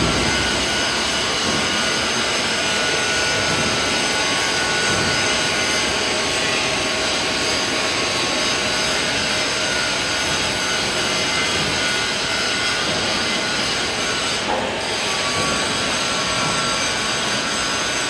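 Agitator drive of a stainless steel process reactor running during a water trial: a steady mechanical running noise with several faint, even tones laid over it.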